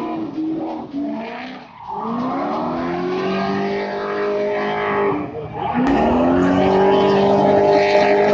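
Drift cars sliding sideways at high revs over screeching tyres. The engine note dips and climbs back up twice.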